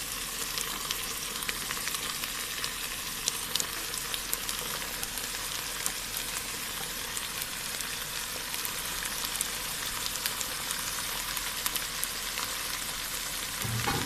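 Food frying in oil in a pan: a steady sizzle with scattered small crackles.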